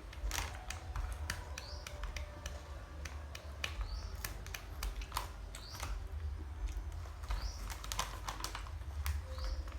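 Irregular light clicks and taps, with a short rising chirp about every two seconds over a low hum.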